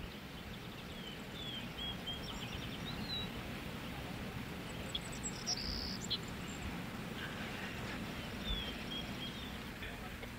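Outdoor suburban ambience: short bird chirps in two brief runs over a steady background hiss.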